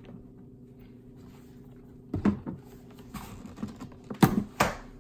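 Clicks, light clatter and two sharp knocks near the end as a hose clamp is loosened with a nutdriver and the discharge hose is worked off the plastic motor housing of a Suncast Aquawinder hose reel, over a steady low hum.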